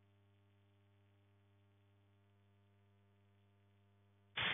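Near silence with only a very faint steady electrical hum. Just before the end, a loud even rush of rain and wind noise cuts in abruptly.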